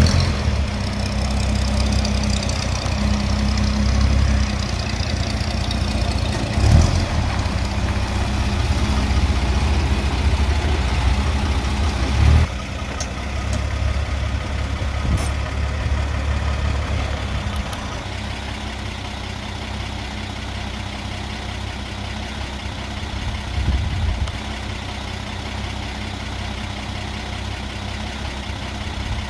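1937 Terraplane pickup's flathead straight-six running steadily, warming up after a cold start. About twelve seconds in, the sound drops abruptly to a quieter, steady run.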